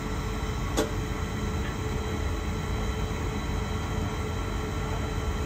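Steady low rumble with a faint constant hum, heard from high up in a tower crane, with one sharp click a little under a second in.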